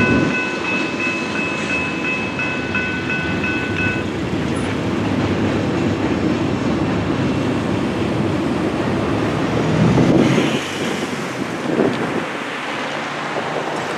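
Railroad crossing signal bells ringing steadily, then stopping about four seconds in as the gates go up. Road traffic follows, with cars rumbling over the grade crossing and a louder swell from a vehicle crossing near the end.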